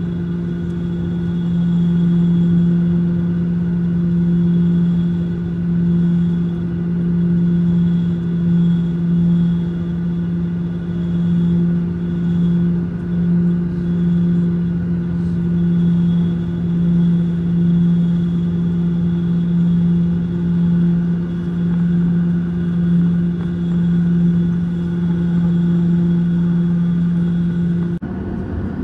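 Steady cabin drone of a Boeing 737-800 taxiing, heard from a window seat over the wing: a constant low hum over a rumble. The hum stops abruptly near the end, leaving a rougher rumble.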